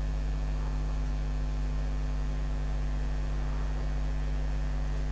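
Steady electrical mains hum: a low, unchanging buzz with several evenly spaced overtones.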